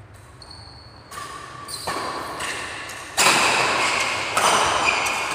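Badminton doubles rally: a series of sharp racket strikes on the shuttlecock, echoing in the hall, growing louder, with the loudest hit about three seconds in.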